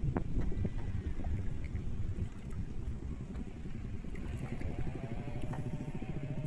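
A fishing boat's engine running steadily, a fast low throb.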